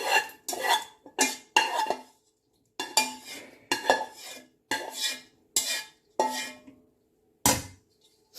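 A metal kitchen utensil scraping and knocking against a cooking pan in quick repeated strokes, about two a second, then pausing briefly before one more stroke. The strokes come from cooked pasta and fried minced meat being scooped together and stirred.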